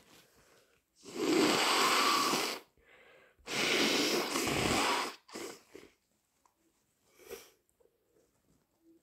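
A person with a head cold blowing a congested nose hard twice, each blow about a second and a half long, followed by a few short sniffs.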